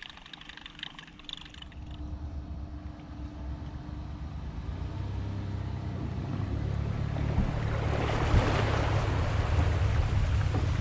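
Boat motor running with a steady low hum and gathering way, joined by a rushing noise of wind and rain that grows louder over the second half.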